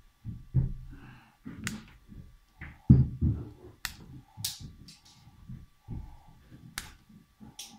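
Irregular handling noises as cable ends are worked with hand pliers: low knocks and bumps, the heaviest about three seconds in, and several sharp clicks.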